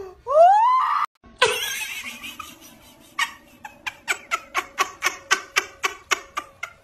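A kitten gives one short rising meow. Then come light, quick taps, about five a second, fading away, fitting a cat's sneakers on a hard floor.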